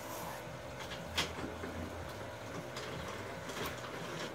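Quiet handling noises from plastic toy track pieces and a cardboard box being moved, with one sharp click about a second in and fainter clicks later, over a steady low hum.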